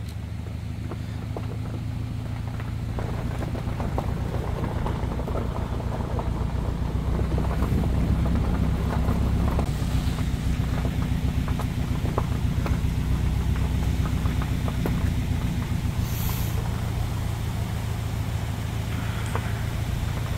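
Car driving slowly along a dirt road: a steady low rumble of engine and tyres that grows louder through the middle, with scattered small clicks above it.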